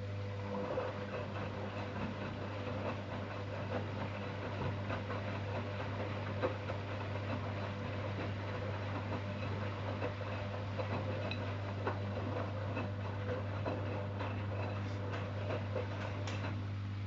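Zanussi Jetsystem Turbodry ZWD 1000 washer-dryer running: a steady low electric hum with scattered small knocks and rustles over it.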